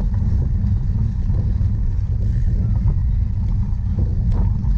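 Steady low rumble of wind buffeting the microphone of a camera on a moving cyclocross bike, with a few faint knocks.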